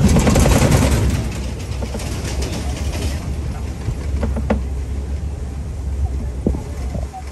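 Open-sided safari truck driving over a bumpy track: a steady low engine rumble, with loud rattling and jostling for the first three seconds or so and a few sharp knocks after that.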